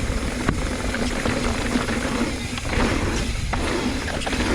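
Wind buffeting a helmet or body camera's microphone while riding a mountain bike on a rocky trail, with the rattle of the bike and a few sharp knocks as it goes over rocks.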